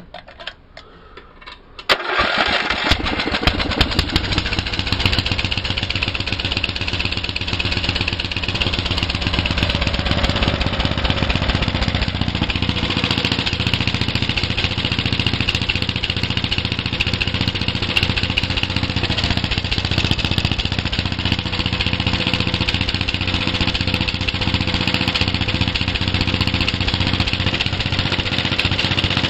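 Snapper riding mower's small single engine catching about two seconds in and then running steadily at a fast idle, set a little too high in the owner's view.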